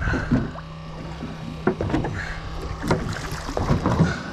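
A fishing boat idling at sea: a steady low engine hum under wind and water noise, with a couple of sharp knocks on the boat about two and three seconds in.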